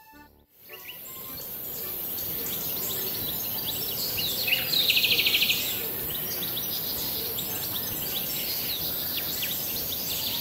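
Outdoor ambience of many small birds chirping over a steady hiss. About four and a half seconds in, a rapid pulsing trill lasting about a second is the loudest sound.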